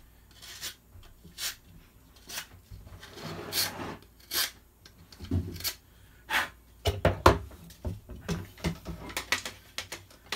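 Plastic M16 handguard being fitted onto the rifle's upper: irregular clicks, knocks and scraping of hard plastic against the receiver parts. The loudest cluster of clicks comes a little past seven seconds in, as the handguard goes into place with its bottom corner nubs cut off.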